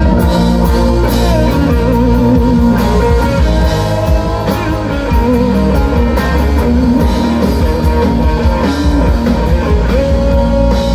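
Live rock band playing an instrumental passage: electric guitars with bending, sustained notes over a steady drum-kit beat.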